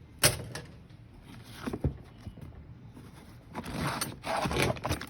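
Rummaging through a tool tote: a sharp knock as something is set down, a few light clicks, then a longer stretch of rustling and scraping as tools and bits are pulled about.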